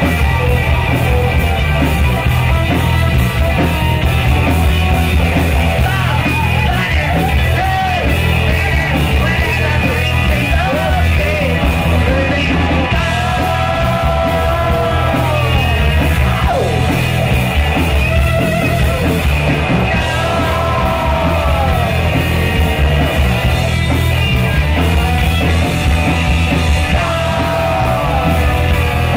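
Live garage-punk rock band playing: electric guitars and drum kit going steadily. A singer yells and sings over them from several seconds in.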